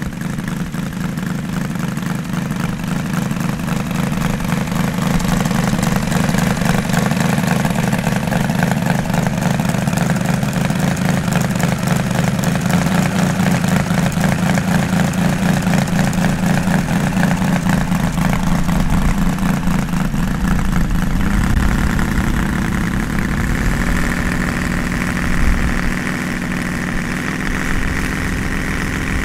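Seven-cylinder model radial engine running on the ground, its propeller turning. The running note is steady at first, then changes about two-thirds of the way through as the engine's speed is altered.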